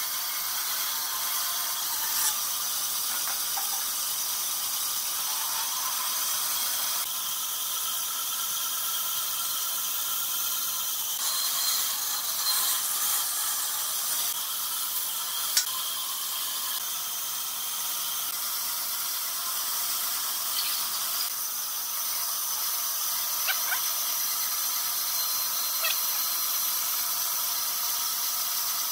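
Band saw running and cutting through a pine board: a steady high whine with a hiss of the blade in the wood, its tone shifting a few times as the cut goes on. One sharp tick a little past halfway, and a few fainter ones.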